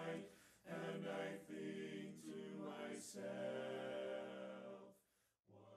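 Men's barbershop chorus singing a cappella in four-part close harmony (tenor, lead, baritone and bass), holding sustained chords. The singing stops about five seconds in, and a quieter chord begins just before the end.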